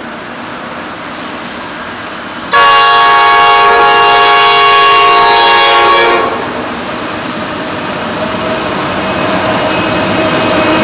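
Pacific National NR class diesel-electric locomotive sounding its multi-note horn in one long blast of about three and a half seconds, starting a little over two seconds in. Before and after the blast, the approaching freight train's engine and wheel noise grows steadily louder.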